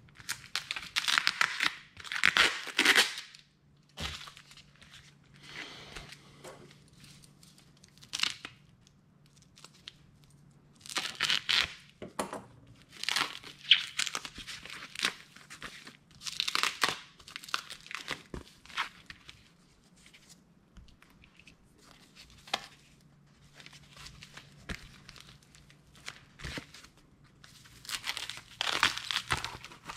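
Foam and plastic packaging sleeves being handled and peeled open by hand, crinkling and tearing in irregular bursts, loudest near the start, in the middle and again near the end.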